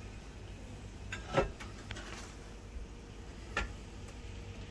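Cookware clanking as a cast-iron skillet of vegetables is lifted off the stovetop and brought over an enamelled Dutch oven: a sharp clank about a second and a half in and another about three and a half seconds in, over a low steady hum.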